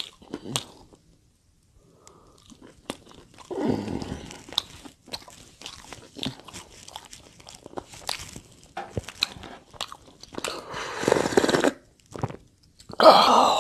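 Close-miked eating: a man chewing roast chicken and pasta, with many short wet mouth clicks and smacks and a couple of longer, louder chewing stretches. Near the end a paper napkin rubs loudly against his mouth.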